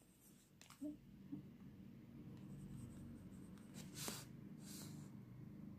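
Faint pen-and-paper handling: two light ticks about a second in, then two short rustles of the paper sheet at about four and five seconds. A low steady hum runs underneath.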